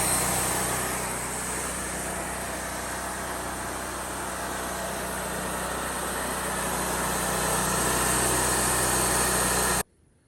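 Bandsaw sawmill running steadily, engine and blade together, with a strong hiss over the engine note; it cuts off suddenly near the end.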